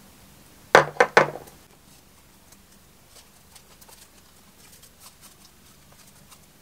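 Three sharp knocks in quick succession about a second in, then faint light taps and scrapes of a wooden spreader breaking an egg yolk and working it into the whipped white on toast.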